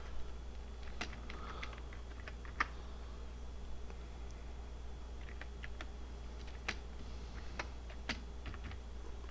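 Computer keyboard being typed on: slow, irregular single keystrokes, a few quick ones bunched together, over a steady low hum.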